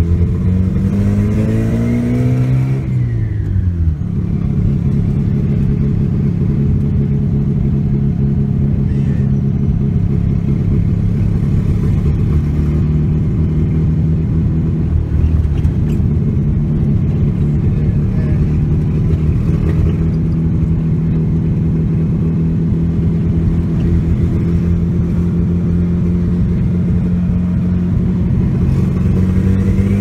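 Turbocharged Subaru Justy engine heard from inside the cabin while driving. It revs up over the first couple of seconds with a rising whine, falls away about three seconds in, runs at a steady cruising pitch, and climbs again near the end.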